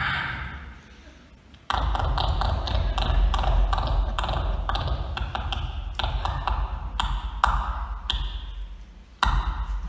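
Live beatboxing through a PA system: rapid mouth-made clicks and snare-like hits over a deep bass line. The beat fades to a short lull twice, then drops back in suddenly, about two seconds in and again near the end.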